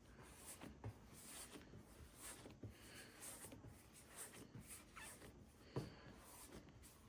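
Faint, soft rubbing strokes of hands rolling bagel dough balls against a counter, repeating every half second or so, with one light knock about six seconds in.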